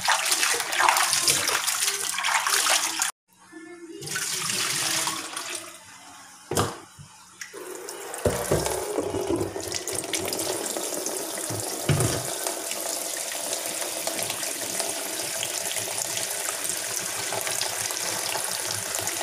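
Dishwashing at a kitchen sink: splashing and sloshing in a basin of soapy water, with a single knock about six and a half seconds in. From about eight seconds in, a kitchen tap runs steadily, water pouring over hands and a plastic container into the basin.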